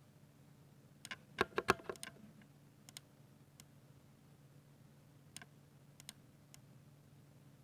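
Ducky 60% mechanical keyboard with silver linear switches being typed on: a quick run of about eight keystrokes about a second in, then single key presses a second or so apart.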